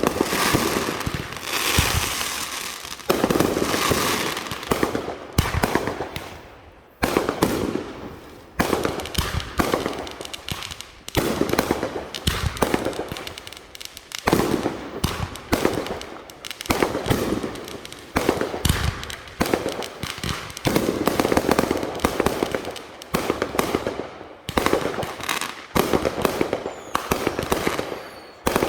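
Fireworks going off in quick succession, a sharp bang about every second or so, each trailing off in a fading tail before the next.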